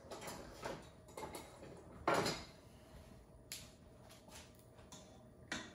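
Short knocks and rattles of a kitchen drawer and metal tongs being handled, about six of them, the loudest about two seconds in.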